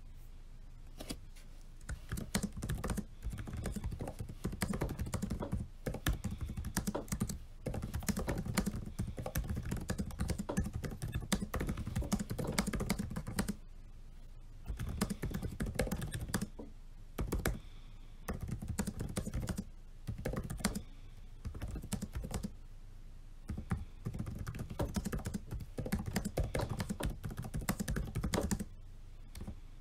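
Fast typing on a laptop's chiclet-style keyboard: dense runs of key clicks starting about a second in, broken several times by pauses of about a second.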